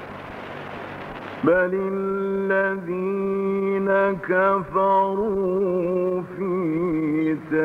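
A man's voice reciting the Quran in the melodic mujawwad style, with long held notes and wavering ornaments and short breaks between phrases. It enters about a second and a half in, after a steady hiss.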